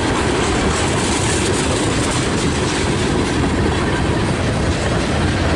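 Freight train rolling past, its wheels on the rails making a loud, steady rumble.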